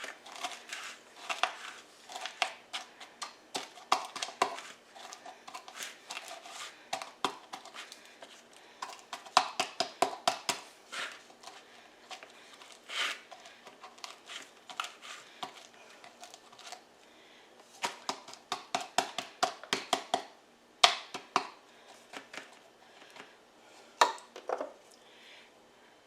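A measuring cup pressing and tapping a buttered crumb crust into a pie pan: irregular clusters of quick clicks and crunches.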